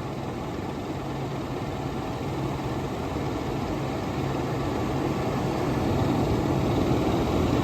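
1994 Fedders 10,000 BTU window air conditioner running: a steady fan rush with a low hum from its Rotorex rotary compressor, growing gradually louder. The unit is cooling normally.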